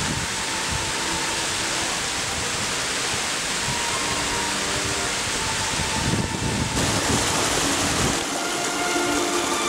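Creek water rushing and cascading over rock ledges: a steady, even rush. Near the end the low rumble drops away and a lighter rush remains.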